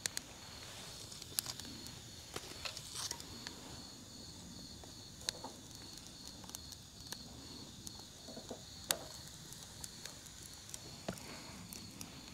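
Wood fire burning in a fire pit, giving off sparse sharp pops and clicks, over a faint insect chirping in a steady, even pulse.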